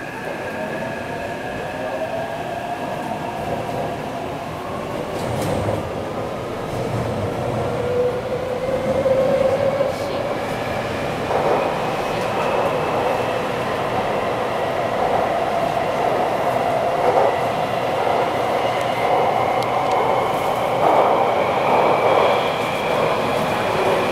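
Taipei Metro C381 train heard from inside the car, its traction motors and inverter whining as the train picks up speed. Several whine tones climb steadily in pitch over running rumble that grows slowly louder.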